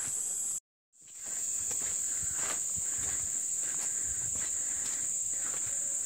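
A steady high-pitched drone of forest insects, with faint footsteps on a dirt path. The sound cuts out completely for a moment about half a second in, then comes back.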